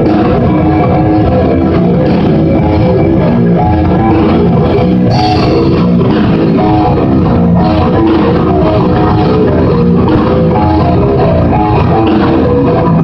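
Live djent metal band playing: distorted electric guitars, bass guitar and drum kit, recorded loud and steady with a muffled, dull top end.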